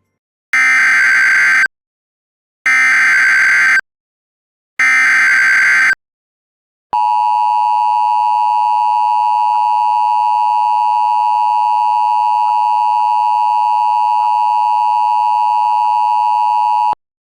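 Emergency Alert System alert tones: three bursts of buzzing SAME header data tones, each about a second long with a second's pause between, then the steady two-tone attention signal for about ten seconds, which cuts off suddenly.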